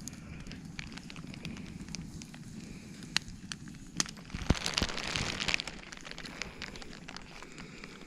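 Campfire crackling, with sharp pops scattered through and a louder burst of noise for about a second halfway through.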